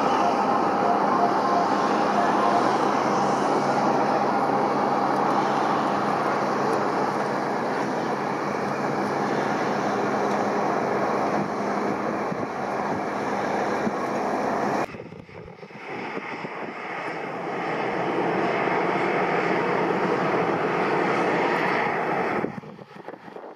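Jet airliner engine noise: a steady rush with a faint whine on top. It cuts off abruptly about two-thirds of the way through, gives way to another stretch of jet noise, and drops sharply again near the end.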